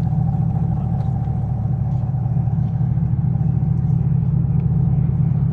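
Engine idling, a steady low rumble.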